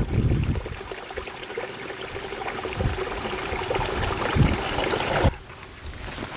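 Water trickling and flowing, a steady rushing noise with a couple of dull thuds; it drops away abruptly about five seconds in.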